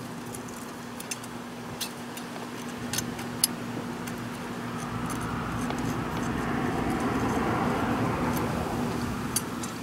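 A few light metallic clicks of a wrench shifting on the rocker-arm adjuster lock nut of a GY6 engine's exposed valve train, over a steady low hum. A rushing noise swells about halfway through and eases near the end.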